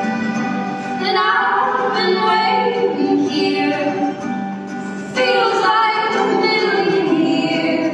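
A female vocal duo singing live with guitar accompaniment. Two sung phrases come in, one about a second in and one about five seconds in.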